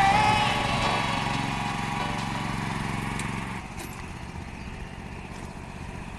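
Riding rice transplanter's small engine running steadily, dropping to a quieter hum about three and a half seconds in.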